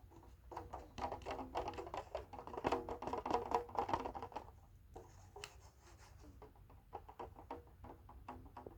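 A paper bowl and the thin film over it being handled, with rapid crinkling, tapping and scratching. It is busiest about one to four seconds in and thins to scattered taps after about five seconds.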